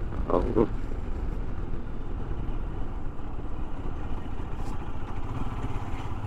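Royal Enfield Himalayan's 411 cc single-cylinder engine running at low speed as the motorcycle rolls slowly into a toll lane, its note settling into a steadier low hum about five seconds in as the bike nears idle.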